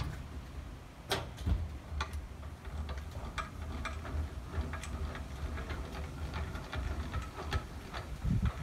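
Light irregular clicks and knocks, a couple a second, from a loaded sack truck being worked on a van's steel-framed cargo lift platform, over a low steady rumble. A louder knock comes about a second in.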